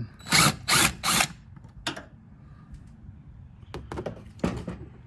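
Hand-tool work on a pickup's engine air filter housing: three quick loud rasps in the first second or so, then scattered clicks and knocks and two more short rasps near the end.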